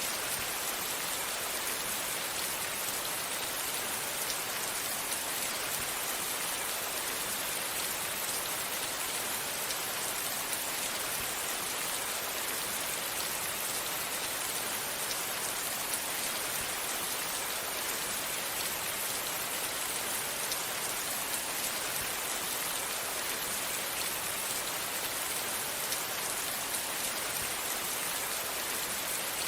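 Steady rain falling on vegetation, an even hiss with scattered drop patter.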